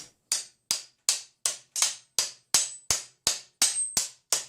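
A steady run of about a dozen light hammer taps, roughly three a second, each with a short metallic ring, gently driving a tight-fitting part onto the hand-wheel shaft.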